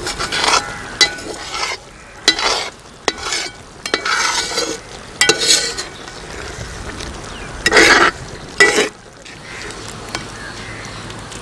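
A metal spoon stirring and scraping through thick quail curry in a metal cooking pot, in irregular strokes of up to about a second each, about seven in all, with a soft wet clatter of the meat being turned over.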